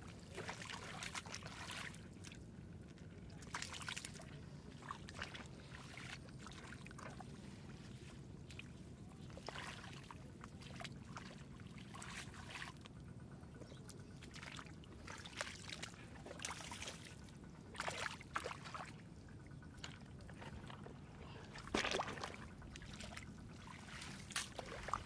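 Shallow water splashing and sloshing in short irregular spells, with the loudest splash about 22 seconds in, over a steady low hum.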